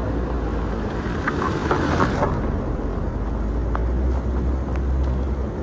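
Road traffic: motor vehicle engines running with a steady low rumble, swelling briefly about a second or two in.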